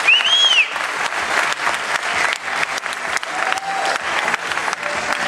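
Audience applauding, with a short whistle that rises and falls right at the start.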